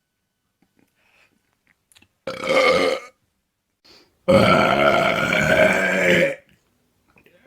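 A person belching twice: a short burp a little over two seconds in, then a loud, drawn-out belch lasting about two seconds.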